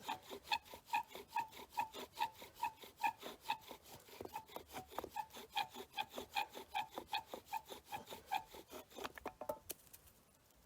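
Bow drill being worked, a sage spindle spinning in a sage hearth board: the bow saws back and forth about twice a second, with a squeak on each stroke. It stops near the end.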